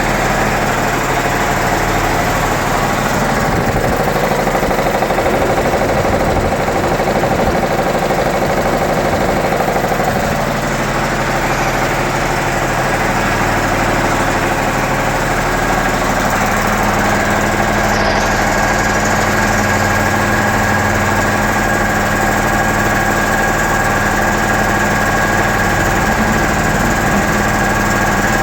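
Piston air compressor driven by a 5 HP, 4-pole electric motor running steadily with a loud, even mechanical hum and clatter, its pitch shifting slightly partway through.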